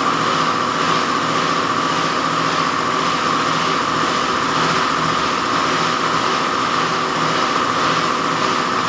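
A machine running steadily: a constant hum with an even hiss on top, unchanging throughout.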